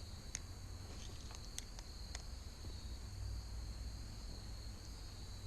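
Faint, steady high-pitched drone of insects, with a few faint ticks scattered through it.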